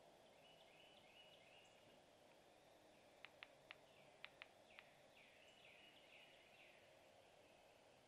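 Faint woodland ambience with distant songbird phrases. A little past the middle comes a quick, irregular run of six sharp clicks, the loudest sounds here.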